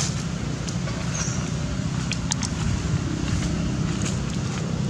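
Steady low outdoor rumble, with a few faint clicks here and there.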